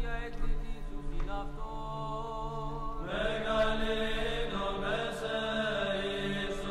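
Chanting voices over a held low drone, in the manner of Byzantine Orthodox chant; more voices join about three seconds in and the sound grows fuller.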